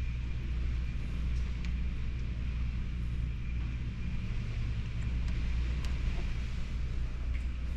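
Hurricane wind blowing hard against the house, heard through a closed window as a steady low rumble, with a faint steady high tone and a few light ticks of rain hitting the glass.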